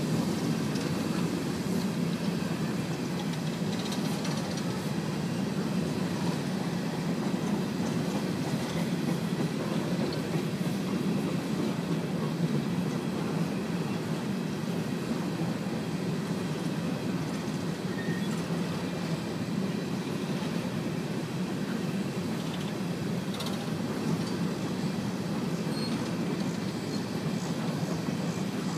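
Empty coal cars of a BNSF freight train rolling past: a steady rumble of steel wheels on rail.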